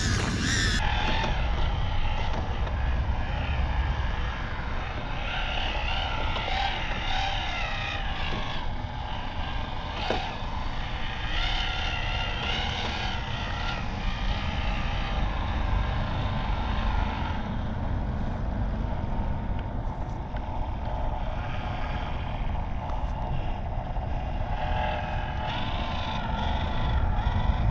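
1:18-scale FMS FJ Cruiser RC crawler running. Its small electric motor and gears whine, rising and falling with the throttle, over a steady low rumble.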